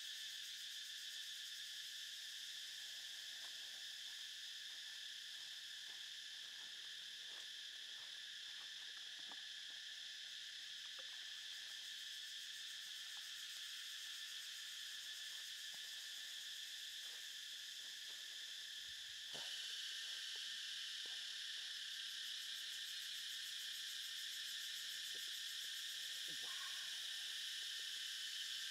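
Steady high-pitched drone of a forest insect chorus, with faint scattered ticks from the charcoal fire beneath the grilling fish; the drone steps up a little about two-thirds of the way in.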